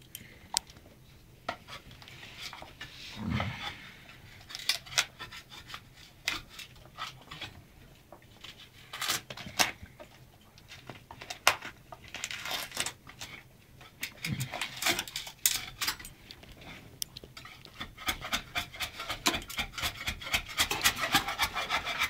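A dog scraping and tearing wallpaper off a wall with its teeth: irregular scrapes, small clicks and short ripping bursts of paper.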